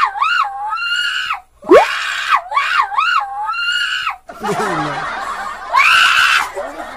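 A young woman shrieking with laughter: several long, high-pitched squeals that waver up and down, broken by quick breaths, with a lower stretch of laughter partway through.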